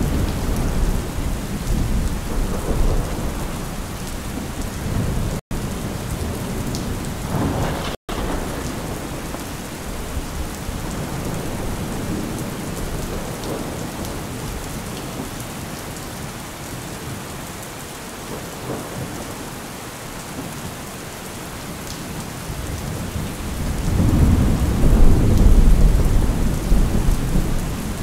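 Thunderstorm: steady rain with rolling thunder. Low rumbles at the start, a sharper clap about eight seconds in, and the loudest, longest rumble starting about twenty-four seconds in. The sound cuts out for an instant twice early on.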